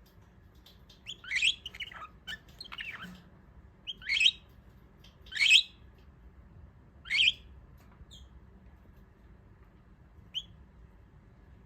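Jumbo budgerigar giving a run of short, sharp chirps, about five loud ones spaced a second or so apart, then a faint one near the end.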